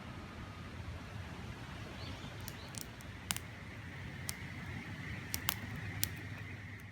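Campfire crackling, with irregular sharp pops, over a steady rushing background like a river; a faint steady high tone comes in about halfway.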